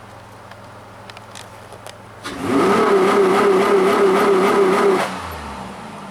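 Dodge Grand Caravan 3.8L V6 with its air box deleted for an open custom intake, idling, then revved sharply about two seconds in and held at high revs for about two and a half seconds with a loud intake rush, before dropping back to idle.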